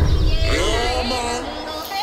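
Hip-hop music with a deep bass beat that drops away near the end, and pitch-gliding vocal or synth notes coming in about half a second in.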